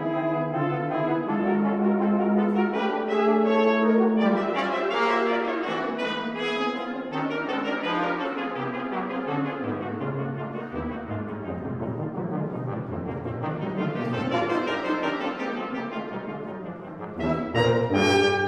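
Brass choir of trumpets, French horns and trombones playing slow, sustained, overlapping chords. The bass line drops lower about halfway through, and a loud new chord enters near the end.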